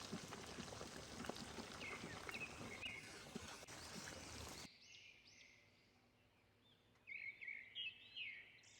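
Soft sizzle of food cooking in a pan with small scattered clicks, cutting off abruptly a little past halfway. Then a few faint bird chirps, in two short clusters.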